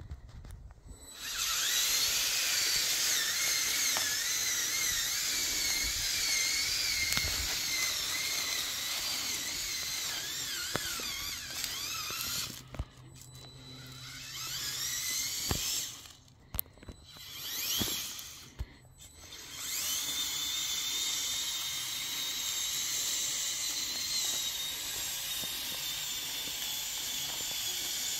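Electric drive motors and gear train of a Lego Technic 6x6 RC crawler whining under load as it drives, the pitch wavering up and down with speed. The whine breaks off briefly three times in the middle.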